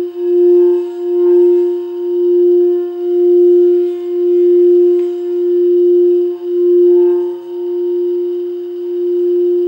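Quartz crystal singing bowl sounding one steady, pure tone that swells and dips in loudness about once a second.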